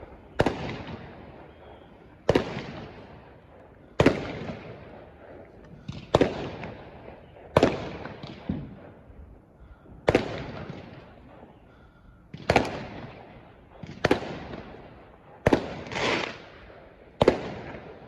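Fireworks going off in a steady run of sharp bangs, one every second or two, about a dozen in all. Each bang trails off over about a second.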